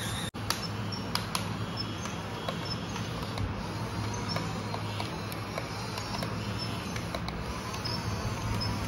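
Toy RC bulldozer's small electric drive motors and gearboxes whirring steadily as it turns on its tracks and shoves a wall of plastic building blocks, with scattered plastic clicks and knocks.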